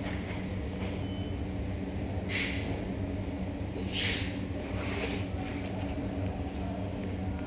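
A steady low machine hum, with two short hisses, the second one louder, about two and a half and four seconds in.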